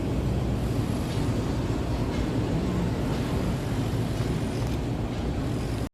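Steady low rumbling background noise, without a clear rhythm or change.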